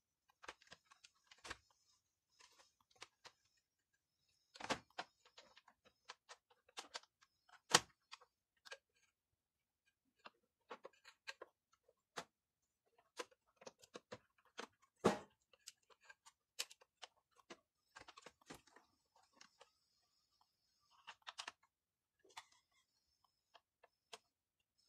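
Irregular small clicks and knocks of plastic gears and parts being handled and fitted by hand in a Samsung three-disc changer's door mechanism, with three louder knocks among them.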